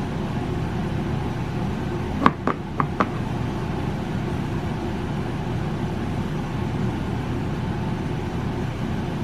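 Steady low background hum, with four quick taps a little over two seconds in: a fingertip tapping an iPad's touchscreen.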